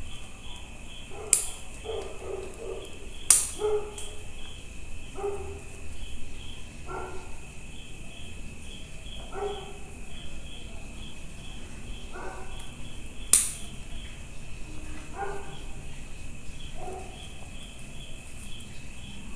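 Bonsai pruning scissors snip sharply three times; the snips are the loudest sounds. Under them a dog barks about every two seconds and crickets chirp steadily.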